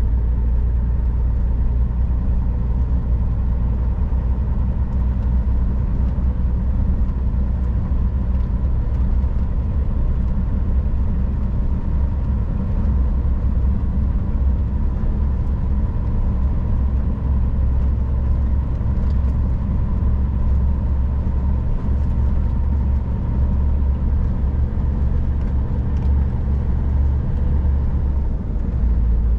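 Scania R440 truck's inline-six diesel engine running steadily under way, a deep even drone with a faint steady whine above it.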